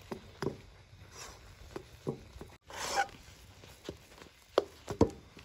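Metal ladle stirring thick rice-flour dough in a metal kadhai, with irregular knocks and scrapes against the pan as the dough is worked until it stiffens. There is one longer scrape about three seconds in.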